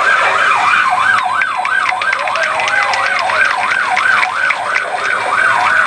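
Police car siren on a fast yelp, its pitch rising and falling about two and a half times a second.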